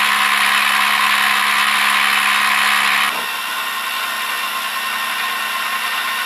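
Tormach Super Fly cutter in a milling machine spindle, facing the top of an aluminum block: a steady spindle hum under a loud hiss of the cut. The level drops abruptly about three seconds in, leaving a quieter steady running sound.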